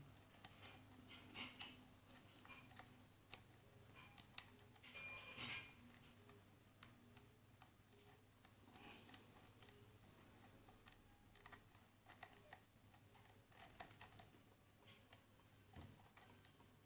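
Faint, irregular metallic clicks and scrapes of a lock pick working the pins of a Keso 2000 high-security lock held under a tension wrench, with a brief busier run of scraping about five seconds in.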